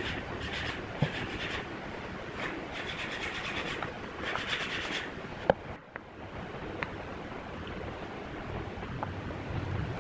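Wood glue squeezed from a plastic bottle along a pine frame, in several short bursts of noise. Later, small wooden blocks are set down onto the glued wood with a few light knocks.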